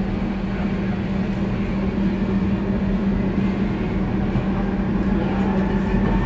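Docklands Light Railway train running, heard from inside the carriage: a steady rumble and rolling noise with a constant low hum. Near the end a faint rising whine comes in.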